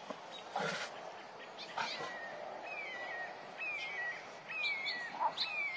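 A tiger hisses twice in short bursts in the first two seconds. After that a bird's whistled call, a falling note, repeats about once a second.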